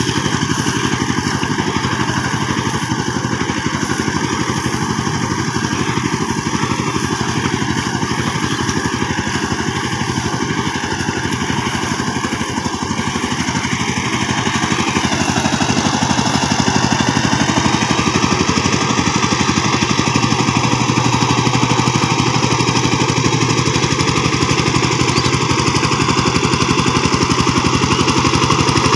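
Two-wheel power tiller's single-cylinder diesel engine running steadily with a fast, even beat as it drives through a wet rice field. The sound changes and grows a little louder about halfway through as the machine turns back toward the listener.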